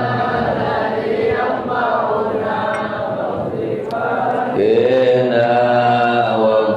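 A man's voice chanting a closing Arabic prayer (du'a) in long, drawn-out melodic phrases, through a handheld microphone.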